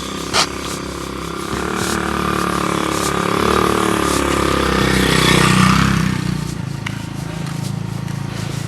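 A motor vehicle passes by, its engine growing louder to a peak about five and a half seconds in, then fading away. A single sharp click sounds just after the start.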